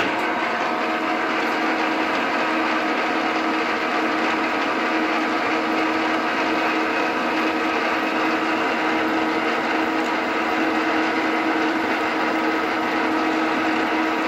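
Vertical milling machine switched on and running steadily, its spindle motor and gear drive giving a constant whine, while a small drill bit is fed into a steel-looking motorcycle front axle. The machine starts right at the beginning.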